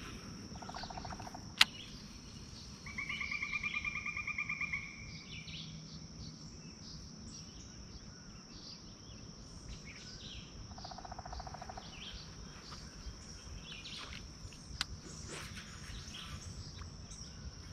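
Summer outdoor ambience: a steady high-pitched insect drone, with a rapid trilling call lasting about two seconds a few seconds in and shorter, lower trills near the start and about eleven seconds in. A single sharp click sounds about a second and a half in.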